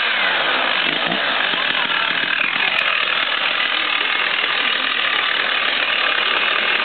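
Stihl MS 880 chainsaw's two-stroke engine, just started: its revs fall back in the first half second, then it idles steadily.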